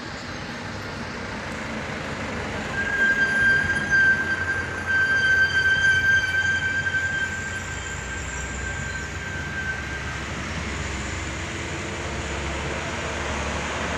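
A coach's horn sounds one long, steady high note for about seven seconds while the bus's diesel engine runs through the bend. A steady engine and road noise continues after the horn stops.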